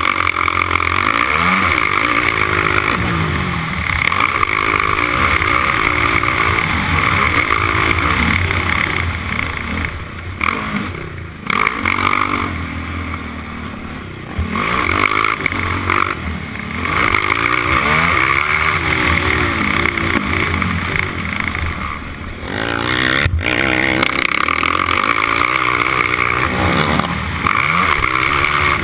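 Four-stroke racing quad's engine from on board, revving up and down under hard throttle. The revs drop off for a few seconds about a third of the way in and again briefly later, then climb back.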